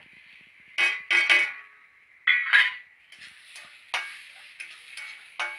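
Flat metal spatula scraping and clattering against a heavy-bottomed kadai as chopped bitter gourd, onion and tomato are stirred together with freshly added spice powders. There are three louder strokes in the first three seconds, then lighter clicks of metal on metal.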